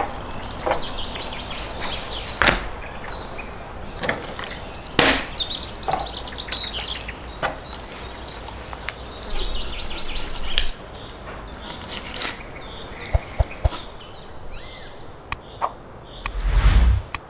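Chopping blows on wood, sharp single knocks every one to two and a half seconds, with a louder, deeper thud near the end. Birds chirp in the background.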